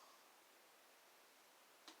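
Near silence: faint room tone and hiss, with a soft click at the start and another just before the end.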